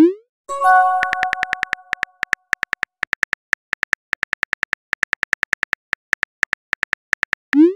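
On-screen phone keyboard typing clicks, about four to five a second. A rising swoosh of a message being sent comes at the start, followed by a short chime that fades. Another send swoosh comes near the end.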